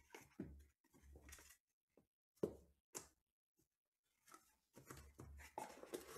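Quiet handling of a trading-card box and its foam insert and card holders: a string of soft rubs and scrapes, one sharper tap about two and a half seconds in, and a longer rustle near the end.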